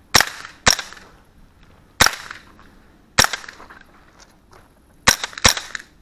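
Six sharp shots from an AR-style carbine running a CMMG .22LR conversion, each with a short echo tail: a pair about half a second apart, then two single shots over a second apart, then a quick pair near the end.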